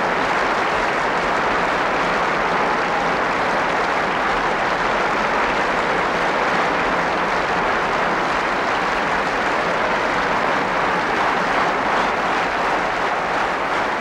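Large stadium crowd applauding steadily, a dense even clatter of many hands.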